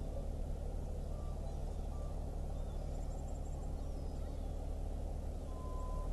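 Steady low rumble of the passing lake freighter's engines, with a few faint short high chirps over it.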